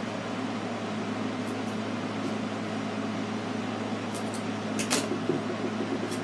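Steady low machine hum with an even hiss, like a fan or air conditioner running in a small room, broken by a few brief crackles about five seconds in.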